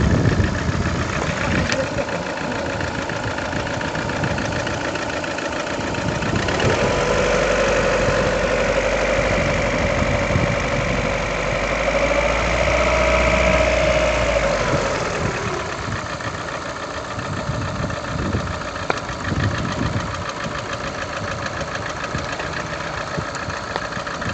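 Lada Priora's VAZ-21126 1.6-litre 16-valve four-cylinder engine idling warm with a knock. The owner can't tell whether it is the hydraulic lifters or a piston. About six seconds in the revs rise and are held for about eight seconds, then drop back to idle.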